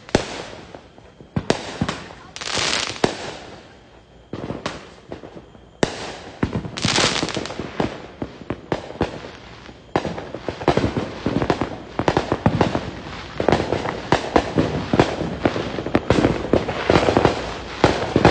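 Fireworks and firecrackers going off in a steady barrage of sharp pops and cracks, with a few longer hissing bursts. The cracking grows denser and more continuous in the second half.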